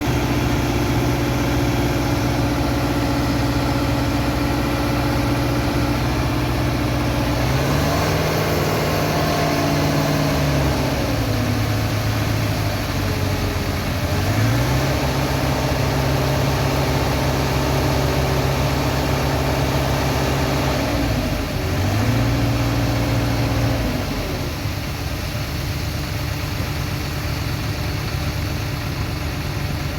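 Diesel engine of heavy construction machinery running near idle, rising in revs three times and holding the higher pitch for a few seconds before dropping back.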